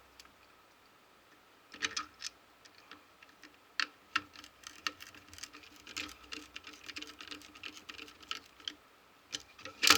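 Small irregular plastic clicks and knocks from handling a power strip's casing as its cover is fitted back on, with a louder knock near the end.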